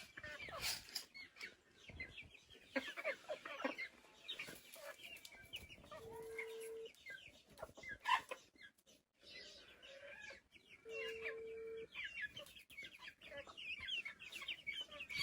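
A flock of young chicks peeping and chirping, with many short high calls overlapping throughout. A steady low hum sounds briefly twice, about six and eleven seconds in.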